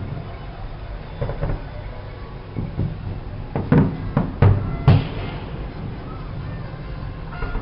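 Fireworks going off: a few sharp bangs early on, then a quick cluster of louder bangs a little past the middle, over a steady din with music in it.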